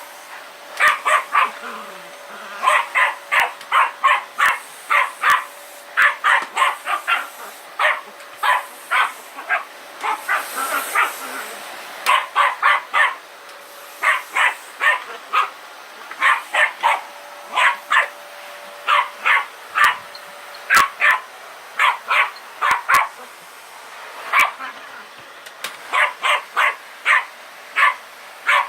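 A small dog barking repeatedly at a running vacuum cleaner, in quick runs of sharp barks with short pauses between. The vacuum cleaner's faint steady hum runs underneath and fades out about two-thirds of the way through.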